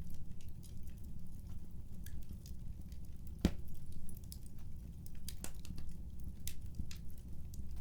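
Wood fire crackling: scattered small pops over a low steady rumble, with one sharper pop about three and a half seconds in.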